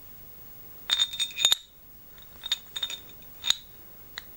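Metal bolt clinking against a metal mounting plate (the lower grommet plate of an Ergotron LX desk-mount arm) as it is threaded through and clipped into place. The sound comes as a few clusters of sharp, ringing metal clicks, the first about a second in, then more in the middle and a couple near the end.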